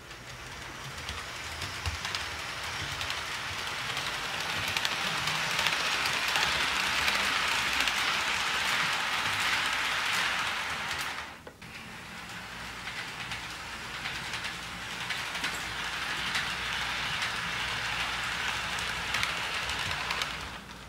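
HO scale model train rolling along sectional track on a hardwood floor: a steady rolling hiss flecked with fine clicking from the wheels. It swells as the train comes closer, breaks off abruptly about halfway through, then picks up again.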